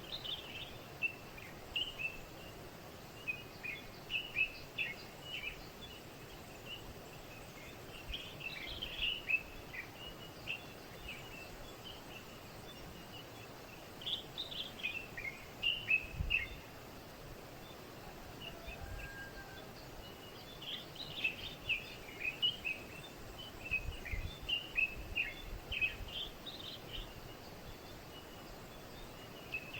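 Small birds chirping and twittering in repeated quick bouts of short, high notes over a steady background hiss, with a few faint low bumps.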